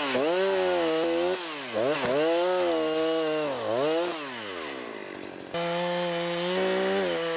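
Chainsaw engine revving and easing off, its pitch rising and falling repeatedly as it works. About five and a half seconds in, it switches abruptly to a steadier pitch.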